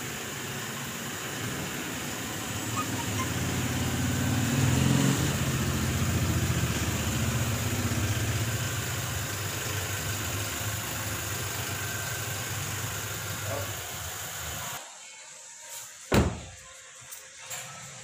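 Toyota Innova's engine running at low speed as the car pulls in, then switched off about fifteen seconds in, cutting out suddenly. About a second later comes a single loud thud of a car door shutting.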